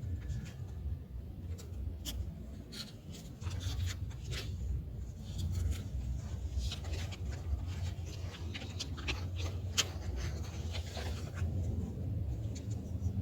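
Wild raccoon dogs moving about: scattered short rustles and clicks over a steady low rumble, busier in the second half.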